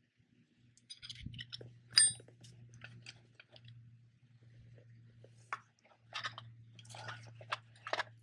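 Small camping gear being handled: leather pouches and cloth rustling and crinkling in short bursts, with one sharp, ringing metal clink about two seconds in from a C-shaped steel fire striker.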